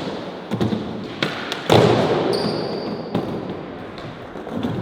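A skateboard knocking and slapping against the ground several times, the loudest slap about two seconds in, with its wheels rolling over concrete between the hits.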